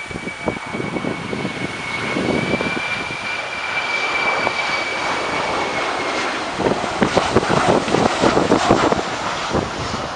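Boeing 737-400F's twin CFM56-3C1 turbofan engines on landing approach: a steady high whine over a rushing roar. About six seconds in the whine fades and a rough, crackling roar takes over as the jet passes low overhead.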